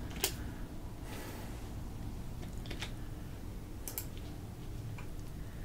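A handful of scattered keystrokes on a computer keyboard, spaced irregularly, over a faint steady low hum.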